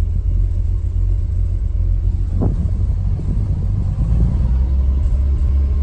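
1978 pickup truck's engine running with a steady low rumble, with a single short knock about two and a half seconds in.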